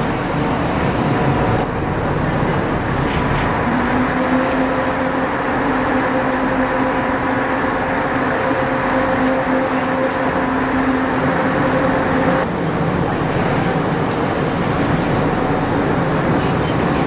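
Car ferry's engines running under way as it comes in to dock: a steady loud drone with a humming tone that comes in a few seconds in and drops away about twelve seconds in.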